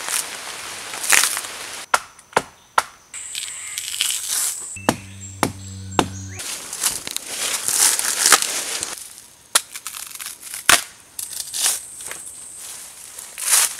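Bark being torn and peeled by hand in long strips off a fallen tree trunk: noisy ripping of fibrous bark with repeated sharp cracks and snaps, and leaves and undergrowth rustling.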